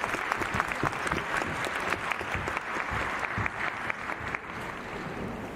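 Arena audience applauding, a dense patter of clapping that thins out and dies away about four and a half seconds in.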